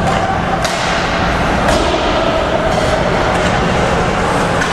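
Ice hockey play in a rink: several sharp cracks of sticks and puck striking, over the steady din of the arena.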